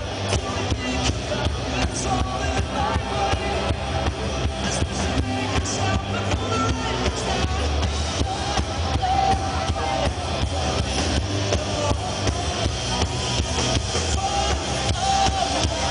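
Rock band playing live: electric guitar, bass and drum kit with a steady beat, heard as a crowd recording of a concert PA.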